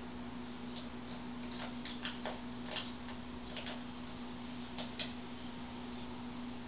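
A blue jay's claws clicking on a hard floor as it hops in, a series of light, irregular taps, a few close together, then a pause and two sharper ones near the end, over a steady low hum.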